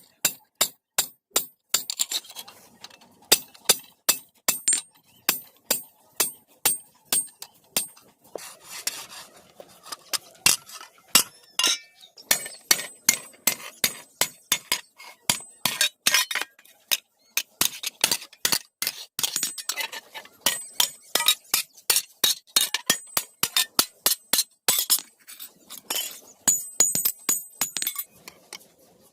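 Hammer striking iron on an anvil while forging a bhala spearhead: quick repeated blows, about two to three a second, each with a bright metallic ring, broken by a few short pauses.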